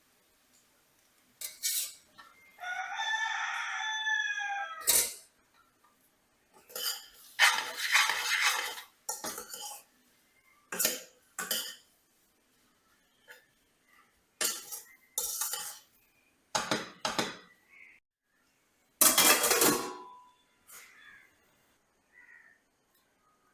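Dishes and cooking utensils knocking and clattering in a string of separate clanks. About two and a half seconds in, a rooster crows once for about two seconds.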